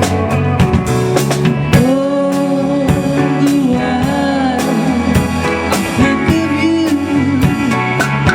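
Rock band playing: a steady drum-kit beat under guitars, with a sung line of long held notes a couple of seconds in.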